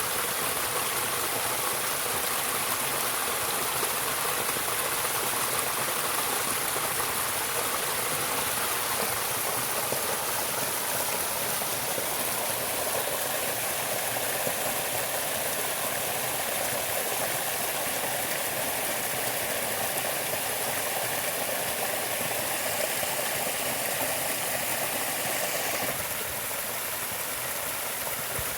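Steady rushing of running water, like a stream, an even noise without a beat or a pitch. Near the end it turns a little quieter and changes tone.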